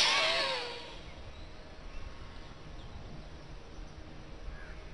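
A man's forceful breath out through the microphone, ending in a sharp burst and a short falling voiced breath sound, all within the first second. Then a low, steady outdoor background with a low rumble and a couple of faint chirps near the end.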